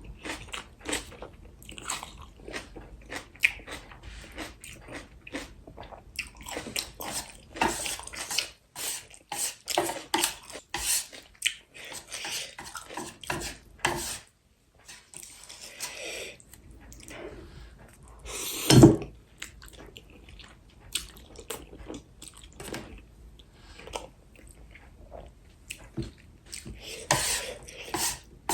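A person eating spicy instant noodles and fresh kimchi close to the microphone: many short bites with chewing and crunching, and one louder, longer mouth noise about 19 seconds in.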